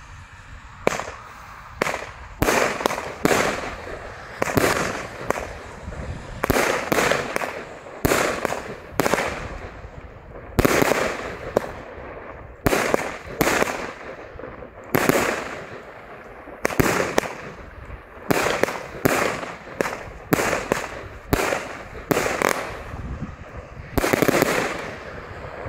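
Superior Fireworks "Adorable" 25-shot firework battery (cake) with 25 mm tubes, firing its shots one after another. Each shot is a sharp bang followed by a short rush of noise, roughly one a second, starting about a second in.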